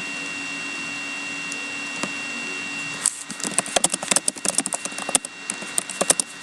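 A steady electrical hum. About halfway through, a run of rapid, sharp clicks starts and lasts about three seconds.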